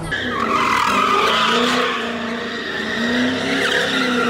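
Car drifting on a concrete parking deck: tyres squealing in a long wavering screech while the engine revs up and down.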